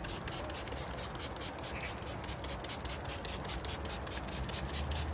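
Hand trigger spray bottle pumped over and over, a rapid run of short spray hisses as iron remover is misted onto a car door panel.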